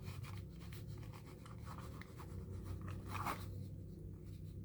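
Thick 1.0 pigment-ink pen writing on notebook paper: faint, irregular scratching strokes, one a little louder about three seconds in.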